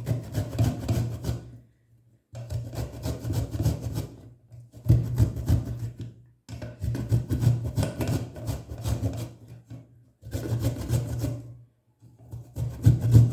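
A piece of fresh ginger root being grated by hand on a grater: runs of quick rasping strokes, each run lasting a second or two to about three, with brief pauses between. The ginger is fibrous, which makes it hard going.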